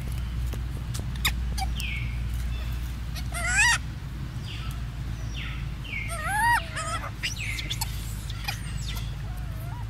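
Baby macaque calling: a few loud wavering squeals, the strongest about three and a half and six and a half seconds in, with shorter high squeaks between them, over a steady low hum.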